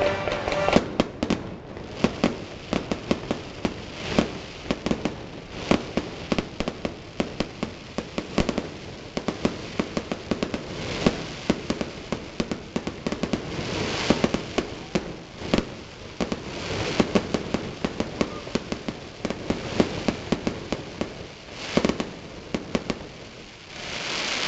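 Fireworks display: a rapid, unbroken string of bangs and crackling reports, several a second, with thicker, louder volleys coming in waves through the stretch.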